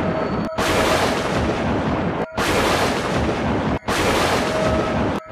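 Loud, continuous rumbling noise like thunder or heavy static, broken by brief silent gaps about every one and a half seconds.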